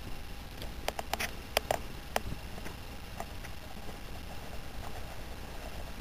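A handful of light, sharp clicks and taps, bunched between about one and two seconds in, over a faint low hum: handling noise from the short-barrelled AR-15 being turned and shown.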